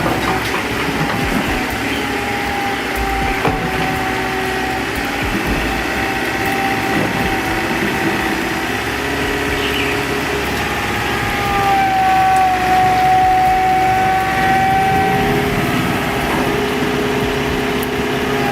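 Excavator engine running steadily with a high, steady whine, which gets a little louder about twelve seconds in.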